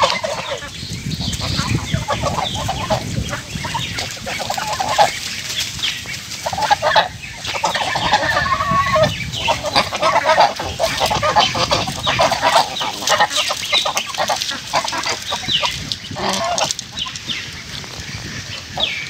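A flock of domestic geese honking and calling continuously, many calls overlapping.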